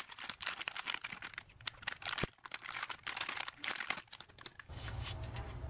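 Crinkling and rustling of a metallized anti-static plastic bag being opened and handled, a run of small irregular crackles, as the LED door projector light is drawn out of it.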